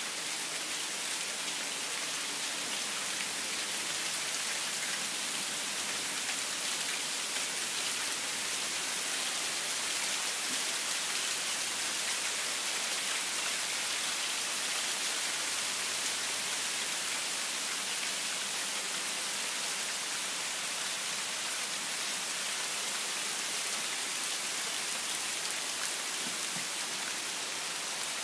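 Steady rain falling on trees and foliage: a continuous, even hiss.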